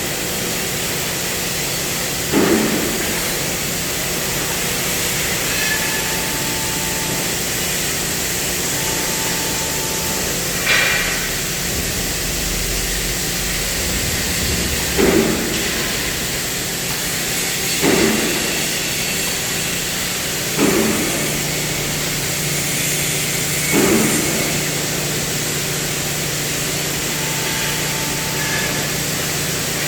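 CNC gas/plasma cutting machine running with a steady loud hiss from the cutting torch, broken by a handful of short metallic knocks spread a few seconds apart.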